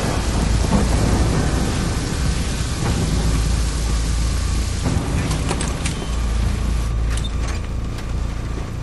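Steady heavy rain with a deep, constant low rumble underneath, as in a thunderstorm. A few sharp clicks come through about five seconds in and again near the end.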